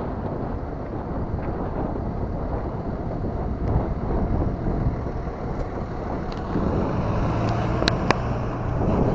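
Wind buffeting the microphone and a steady low rumble from riding a bicycle. From about six and a half seconds in a low steady hum joins, and two sharp clicks come close together about eight seconds in.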